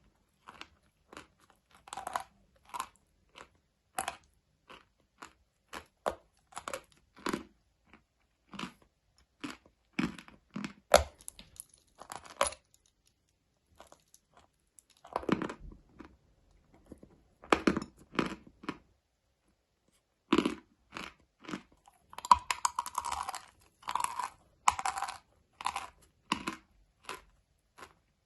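Close-miked chewing of a hard, dry, crumbly material: a string of irregular crisp crunches with a short pause in the middle and a dense run of crunching near the end.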